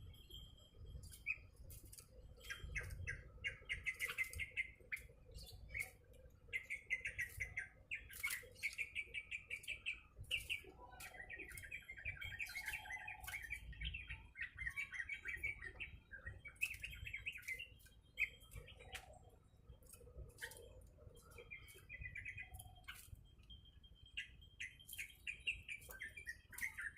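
Caged yellow-vented bulbul (trucuk) chattering in repeated bursts of quick, high notes, with sharp clicks in between.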